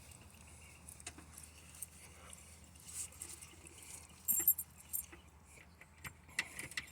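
A key and its key ring clinking and clicking as the key is fitted into a newly installed ignition switch, with one brief jingle about four seconds in.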